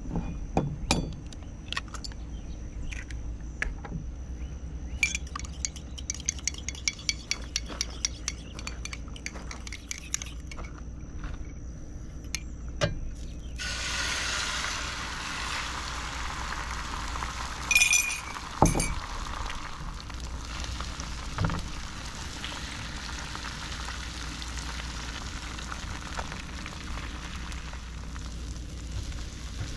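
Eggs cracked and beaten in a ceramic mug, a fast run of clinking, then about halfway through the beaten eggs are poured onto a hot electric griddle and sizzle steadily, with a couple of sharp knocks soon after they start cooking.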